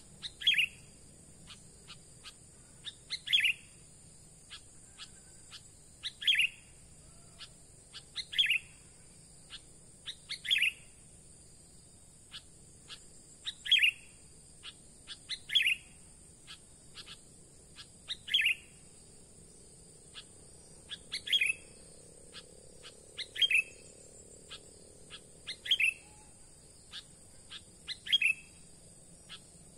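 Sooty-headed bulbul (kutilang) decoy calling, a short sharp chirp repeated about every two seconds to lure wild bulbuls to the glue sticks, over a steady high-pitched buzz.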